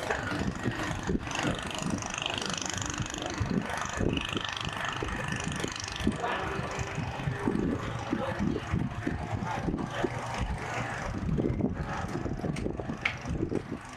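Busy outdoor street ambience: vehicle engines running and passing, with scattered voices and clatter mixed in.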